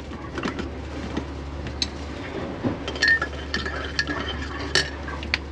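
Metal spoon stirring instant coffee in a ceramic mug, a series of light irregular clinks against the mug's side with a brief ring, over a steady low hum.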